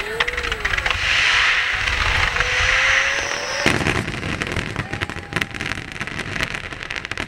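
Fireworks: a loud hissing rush with a slowly rising whistle for about three seconds. It stops abruptly in a bang, followed by dense crackling of bursting shells.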